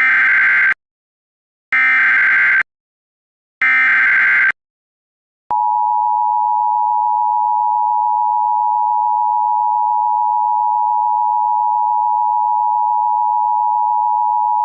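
Emergency Alert System SAME header: three short bursts of digital data tones, one after another about two seconds apart. About five seconds in they give way to the steady two-tone EAS attention signal.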